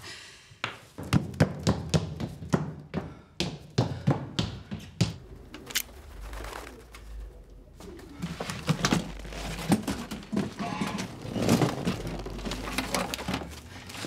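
An old leather suitcase being opened and emptied by hand: a quick run of clicks and knocks from its fittings and the things inside, then rustling as clothes and other contents are pulled out and tossed aside.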